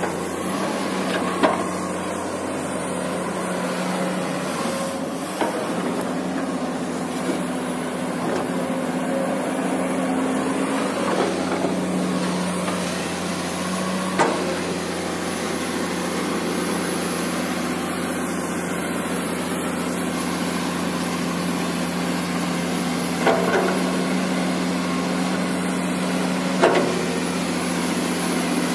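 Komatsu PC200 hydraulic excavator's diesel engine running steadily as the machine digs and tracks, with a handful of short sharp clanks from the working machine scattered through.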